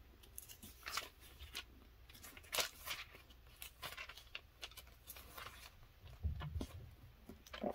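Thin Bible-paper pages being thumbed and flipped by hand: a run of soft, brief rustles and flicks, with a low bump a little past six seconds in.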